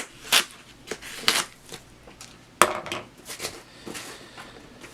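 Packaging being handled and cut open by hand: a run of separate clicks, taps and light rustles, with one sharp knock about two and a half seconds in.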